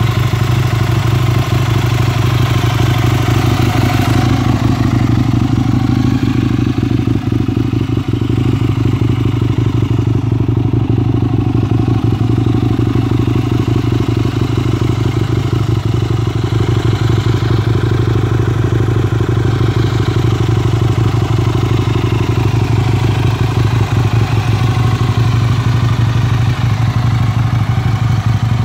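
Aprilia RSV 1000 Tuono's V-twin engine idling at a steady pitch, with no revving.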